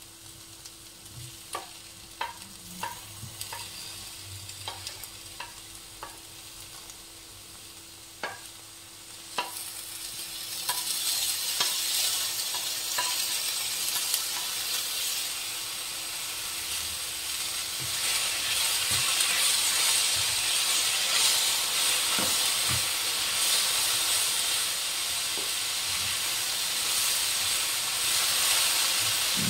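Vegetables frying in hot oil in a nonstick pan, with scattered light clicks for the first few seconds. About ten seconds in, the sizzling grows much louder and stays loud as more chopped vegetables, tomato among them, go into the oil and are stirred with a spatula.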